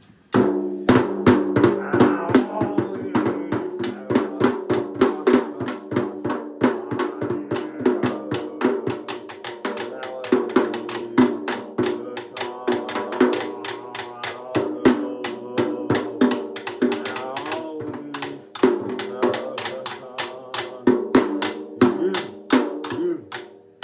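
Music with busy drums and percussion, with many rapid snare-like hits over sustained pitched notes. It starts suddenly just after the beginning.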